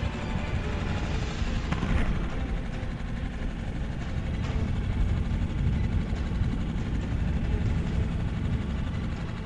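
Wind buffeting an action camera's microphone on open water: a steady low rushing noise, with two faint clicks about two and four and a half seconds in.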